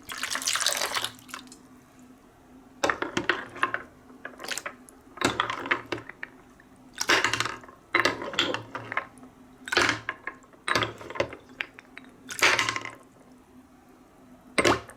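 Marbles clattering and rolling along a wooden marble run with water splashing, in repeated short bursts about once a second.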